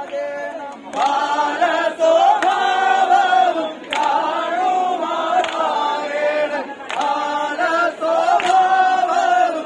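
Male chorus singing a vanchipattu, a Kerala boat song, together in long held phrases, with a sharp hand clap roughly every second and a half keeping time.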